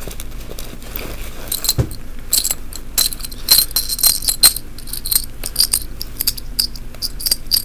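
Small metal pin-back buttons clicking and clinking against each other as they are handled and set down. A quick run of light clicks starts about a second and a half in, with a soft knock just before it.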